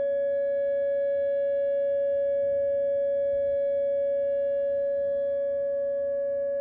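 Whelen WPS 2909 electronic outdoor warning siren sounding its steady alert tone, held at one pitch without rising or falling.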